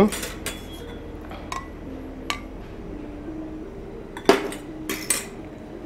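A metal spoon and ladle clinking against a ceramic bowl and steel containers as egg is ladled into a bowl of chicken marinade. A few scattered clinks, with a louder cluster about four to five seconds in.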